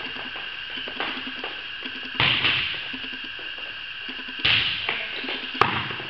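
Volleyballs being struck during passing drills: a few sharp smacks of ball on arms and hands, spaced a second or two apart, each ringing on in the echo of a large gym hall, over a steady hiss.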